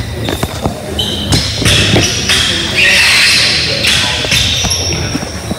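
Basketball game sounds on a hardwood gym court: short, high sneaker squeaks and a few thuds of a bouncing ball, with voices in the hall.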